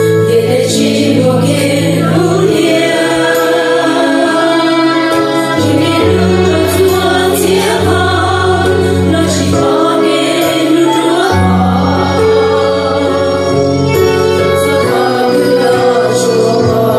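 A song sung by a choir of voices over instrumental backing, with long held bass notes that change every second or two.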